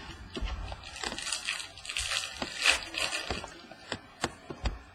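Trading cards and their packaging being handled: rustling and crinkling, with scattered light clicks and taps.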